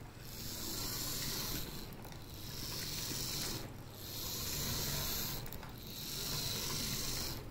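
Fleischmann V 60 H0 model locomotive chassis, its motor and gear train running with a high whirring hiss. The whir comes in four runs of about a second and a half each, with short pauses between them.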